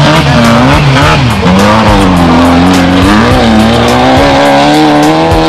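An off-road race vehicle's engine revving in short rises and falls, then climbing slowly and steadily in pitch, over loud rap-rock music with a steady beat.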